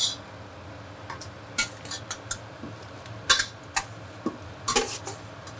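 A spoon stirring pasta in sauce in a pan, with repeated sharp clinks and scrapes of the spoon against the pan, the loudest about three seconds in.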